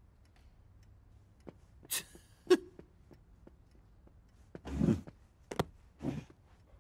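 Sparse cartoon sound effects in a quiet room as a character settles at a table with a book: a short hissy rustle about two seconds in, a sharp knock just after, and brief low breathy sounds and a click about five and six seconds in.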